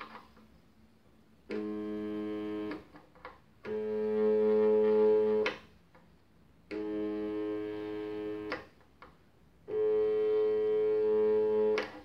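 Stepper motor running under joystick control in four short spells of one to two seconds each. Each spell is a steady, musical-sounding whine at a fixed pitch that starts and stops abruptly. The second and fourth spells are louder.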